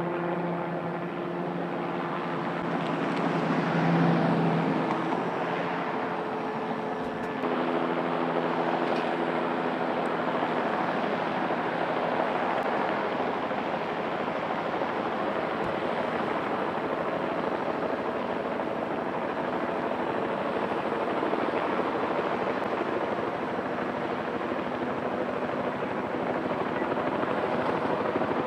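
Light single-turbine helicopter running, a steady turbine and rotor noise. About seven seconds in the sound changes abruptly from a set of steady tones to a broader, even rush.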